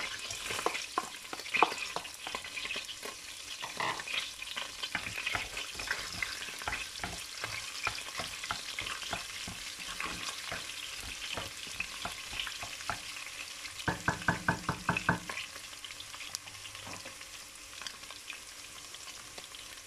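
Chopped onions sizzling as they fry in hot oil in a stainless steel pot, with a spatula stirring through them. Two-thirds of the way through comes a quick run of about ten taps.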